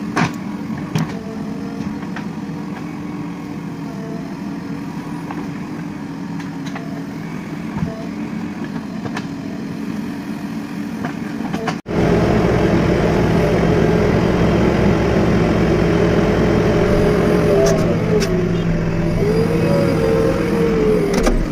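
JCB 3DX backhoe loader's diesel engine running under load as the machine works, steady at first. About twelve seconds in it becomes louder and closer, heard from inside the cab. Near the end the engine's pitch rises and falls.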